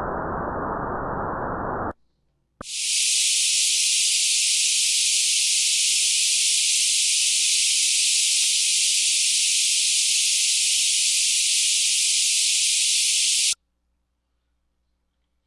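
Synthetic tinnitus-masking noise from the Serenity program. A low-pitched hiss stops about two seconds in. After a brief gap and a click, a bright high-pitched hiss runs for about eleven seconds and cuts off suddenly near the end.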